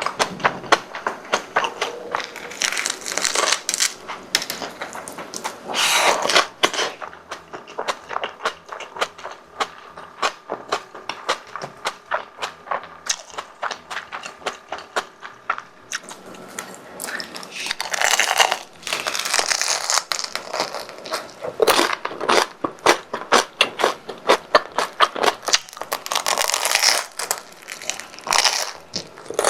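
Close-miked eating of crispy deep-fried croquettes and bread: crunchy bites into the fried crust and chewing with dense crackling. There are louder crunching bites about 3 and 6 seconds in, and again around 18 to 20 and 26 to 27 seconds.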